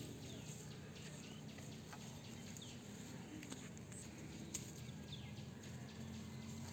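Faint outdoor ambience: scattered short bird chirps over a low steady hum, with one sharp click about four and a half seconds in.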